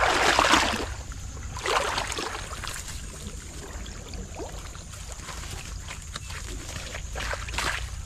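Brushing and splashing through wet swamp grass and shallow water: short swishes near the start, about two seconds in and near the end, over a steady low rumble.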